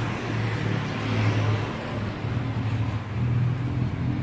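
Street traffic: engines of motor vehicles passing on the road alongside, a steady hum that swells about a second in and again near the end.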